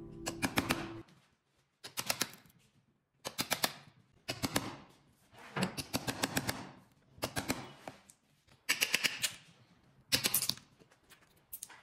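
Hand tools striking wood: about eight short bursts of quick, sharp taps, several strikes to each burst, separated by silent gaps.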